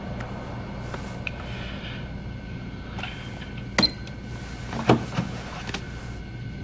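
Steady low hum of room tone with a few faint clicks, the two loudest about a second apart midway through.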